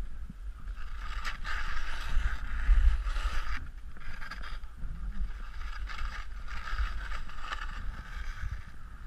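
Hiss of snow sliding under a rider's edges on an off-piste descent, swelling twice as the turns bite, over a steady low rumble of wind on the microphone.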